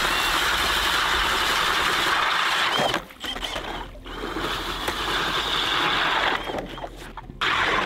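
Ice auger bit boring through about three inches of clear lake ice, a steady grinding as it cuts and throws out chips. It stops about three seconds in and runs again a second later, with another short break near the end.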